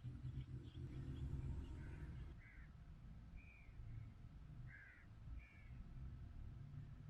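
Low wind rumble with several short bird calls, like caws, spread through the middle.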